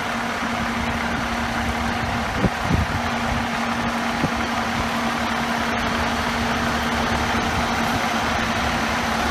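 A heavy vehicle engine idling steadily with a constant hum, with a few brief knocks about two and a half and four seconds in.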